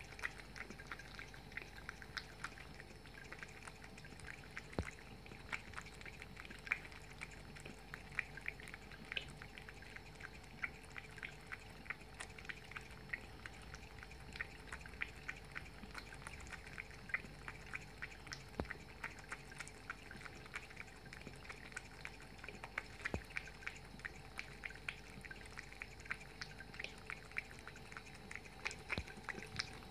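A thin stream of water running from a basin mixer tap into a ceramic wash basin, with many quick light clicks throughout as a cat laps at the water.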